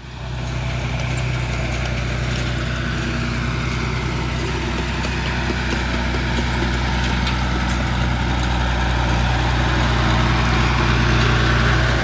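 Massey Ferguson tractor engine running steadily as the tractor drives closer, growing slightly louder near the end.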